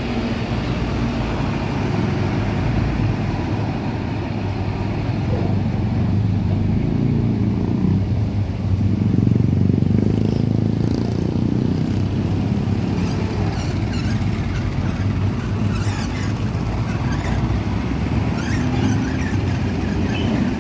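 Road traffic crossing a railway level crossing: truck and motorcycle engines running past in a steady stream, loudest about nine to eleven seconds in as a flatbed trailer truck goes by. Light clicking and clattering comes through in the later part.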